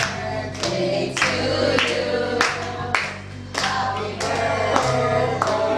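A song with singing over a steady backing, with sharp clap-like beats evenly spaced at just under two a second.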